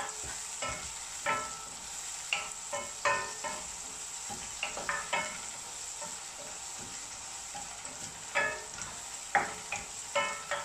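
Chopped onions and curry leaves frying in oil in a stainless steel kadai, with a steady sizzle. A wooden spatula stirs them, scraping and knocking against the pan, which rings briefly with each stroke at irregular moments.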